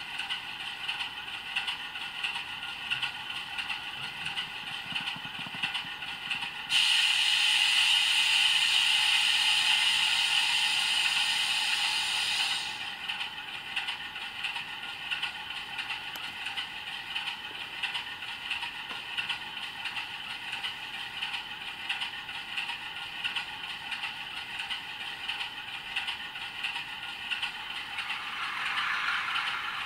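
Model diesel locomotive sound decoder playing an idling diesel engine through a small loudspeaker, thin and without any low end, with steady ticking. About seven seconds in, a loud hiss of released air comes in for about six seconds; near the end the engine sound grows louder.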